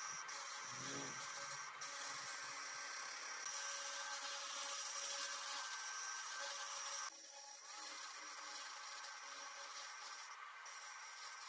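XLaserlab X1 Pro 700 W fiber laser cleaning torch ablating rust from a steel hammer head: a steady hiss. The level steps up about a third of the way in and drops suddenly about seven seconds in.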